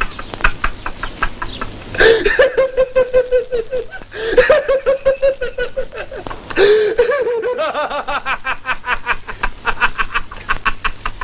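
People laughing loudly in rapid ha-ha pulses, in three long fits that begin about two seconds in, just past four seconds, and about six and a half seconds in, the last running on with quicker, quieter pulses.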